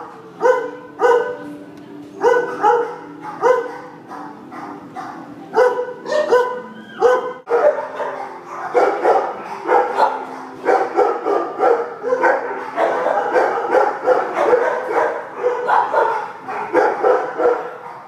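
Shelter dogs barking in their kennels. At first the barks come sharp and separate, about two a second; from about seven seconds in they turn into a denser din of overlapping barking.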